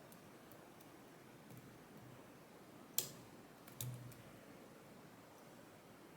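Faint metallic ticks of a lock pick working the pins of a West 917 high pin count lock, with a sharp click about three seconds in and a second, softer click just under a second later.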